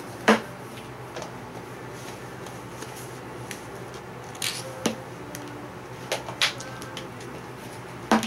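A handful of short, sharp knocks and clicks of small plastic toys being set down and handled on a tabletop, the loudest just after the start, over a faint steady hum.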